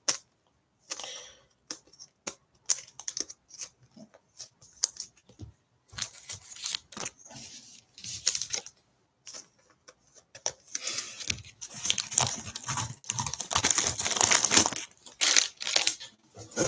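Plastic wrapping crinkling and tearing, mixed with light clicks and taps of cards and packs being handled. The crinkling grows denser and louder for a few seconds about two-thirds of the way through.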